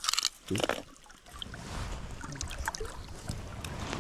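Shallow creek water rushing and splashing around a wader's legs and a landing net held in the current, with two short sharp splashy noises in the first second before the steady rush of water takes over.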